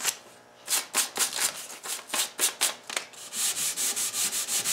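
Sandpaper, 150 grit, rubbed by hand back and forth across a mahogany tabletop leaf. After a brief pause at the start come separate strokes, which quicken from about three seconds in to rapid short strokes, about five a second.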